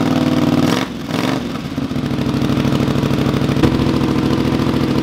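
Honda CX V-twin motorcycle engine running through a short wrapped exhaust: held a little above idle, the throttle is let off about a second in, the revs dip and it settles into a steady idle.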